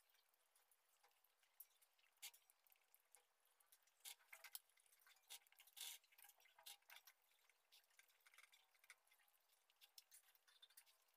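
Faint eating sounds: scattered small clicks and wet smacks of rice being mixed by hand on a steel plate and chewed, busiest around the middle.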